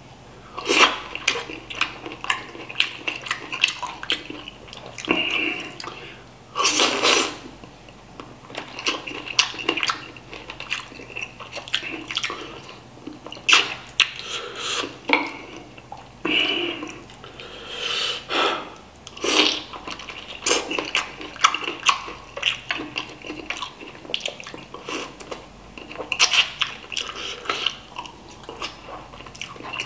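A person eating spicy chicken feet by hand, sucking the meat off the bones and chewing with wet smacking and slurping mouth sounds, with a few louder bursts now and then.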